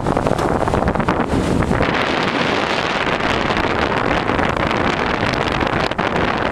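Wind buffeting the microphone on the deck of a sailing yacht under sail at about 18 knots, mixed with the rush of water along the hull. The hiss grows brighter about two seconds in.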